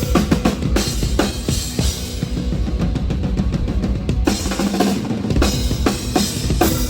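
Metal drum kit played hard during a sound check: a fast, steady kick-drum pattern under snare hits and cymbal crashes.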